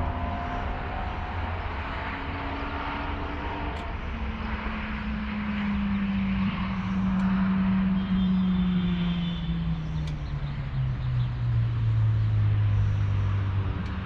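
Yamaha XVS 650 Drag Star Classic's V-twin engine running on the move, its pitch falling steadily over several seconds from about four seconds in. Wind rushes over the helmet-mounted microphone throughout.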